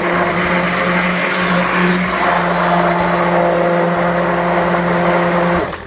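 Stick blender motor running steadily while mixing raw soap batter, then switched off about five and a half seconds in.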